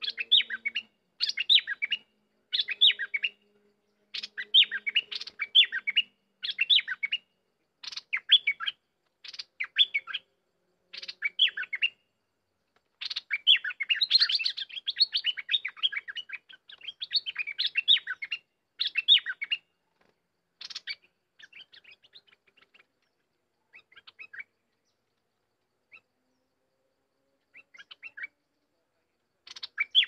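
Bulbul singing: short chattering song phrases repeated about every second or so, running together in a dense stretch near the middle, then coming fainter and further apart towards the end.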